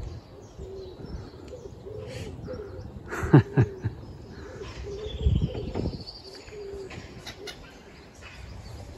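Birds calling on a riverbank: a run of low cooing notes, light higher chirps, and one sharp call falling steeply in pitch about three seconds in.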